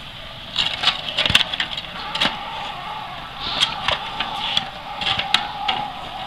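Metal tongs clinking and scraping against iron pieces and the metal bucket as they are fished about underwater, in a string of irregular sharp clinks. A steady hum comes in about two seconds in.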